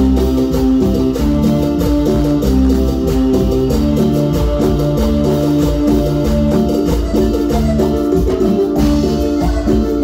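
Amplified live band playing upbeat Latin dance music with a steady beat, pitched melody lines over a heavy bass.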